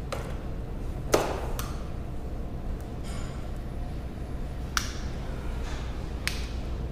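Five sharp light clicks and taps, the loudest about a second in, as a tape measure is handled and wrapped around a plaster model. A steady low room hum runs underneath.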